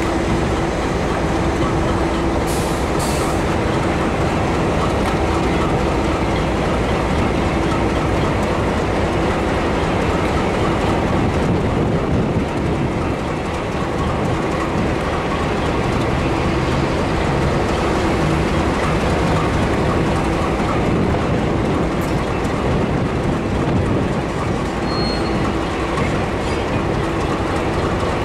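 KiwiRail diesel-electric freight locomotives running past at close range: a steady, loud engine drone with a constant hum under it. Two brief high hisses come about three seconds in.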